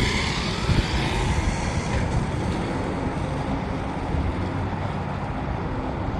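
Typhon 8S RC buggy with a 4050 brushless motor running, its motor whine falling away over the first couple of seconds, over a steady low rumble.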